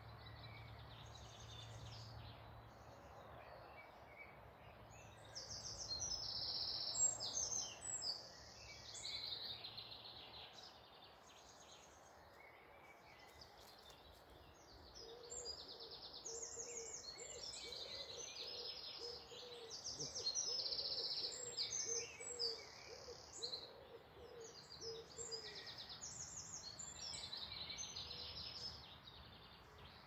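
Woodland songbirds singing, several overlapping high, quickly repeated song phrases one after another. Through the middle a run of low, evenly repeated notes sounds beneath them, and a faint low hum lies under the first part.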